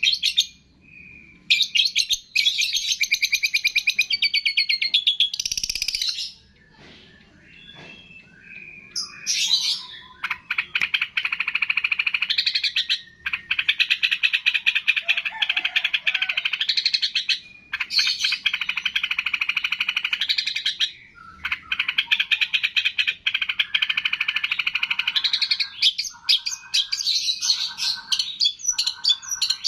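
Songbird singing in long runs of rapid, high chattering notes, each run lasting a few seconds with short pauses between, then three short, lower notes near the end.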